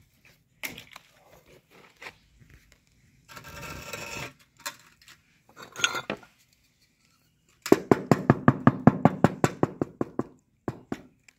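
A steel trowel scraping and clicking as cement mortar is spread on the back of a wall tile. About eight seconds in comes a fast run of sharp taps, roughly ten a second for a couple of seconds, as the tile is knocked into its mortar bed with a wooden handle.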